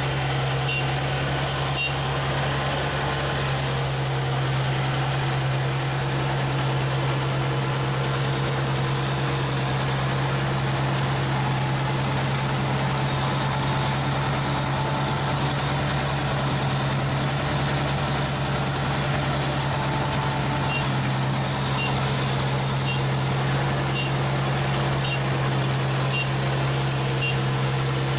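ISEKI 325 rice combine harvester running steadily under load, with a strong low engine hum. A high warning beep sounds about once a second near the start and again through the last third.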